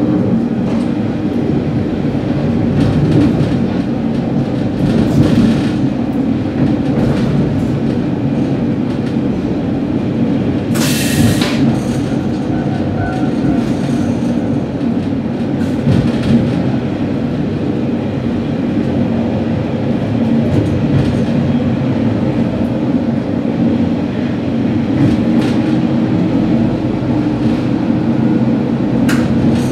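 Sanriku Railway diesel railcar running along the track, its engine humming steadily under the cab floor, with wheels clicking over rail joints and points. A short hiss comes about a third of the way in.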